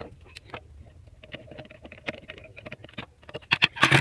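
Screwdriver clicking and scraping on the screws and steel needle plate of an industrial straight-stitch sewing machine, in small irregular ticks, with a brief burst of louder clicks and clatter near the end.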